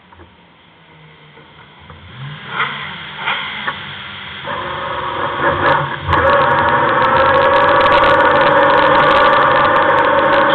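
A few knocks and clatters, then an engine comes in about halfway through and runs steadily, much louder from about six seconds in.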